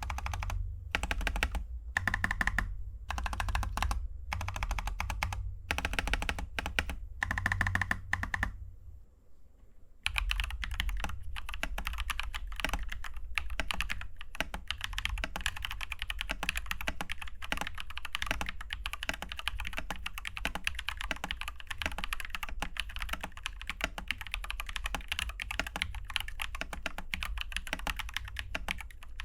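Typing on a mechanical keyboard fitted with Glorious Panda tactile switches. The first several seconds are short runs of keystrokes with brief gaps between them; after a short pause, about ten seconds in, the typing becomes fast and continuous.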